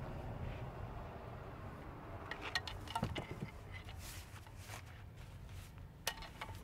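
Sports gear being handled and pulled out of a car's rear hatch: a few short clicks and knocks, clustered about two to three seconds in and again near the end, with soft rustling over a low steady hum.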